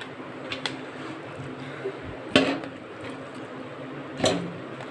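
Raw chicken pieces being handled in a stainless steel colander, with three sharp knocks of meat and hand against the metal, the loudest about halfway through.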